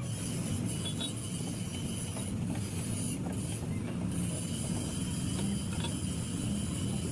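Mercedes diesel truck engine running steadily, with a few faint clicks from tools or parts.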